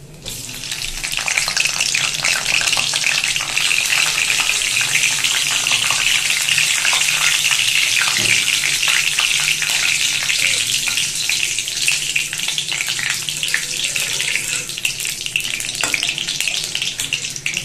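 Whole cumin seeds and whole garam masala (bay leaf, cardamom, cloves, cinnamon) sizzling and crackling in hot refined oil in a steel kadai. The sizzle flares up just as the spices are dropped in, then keeps up steadily while they are stirred with a metal spoon.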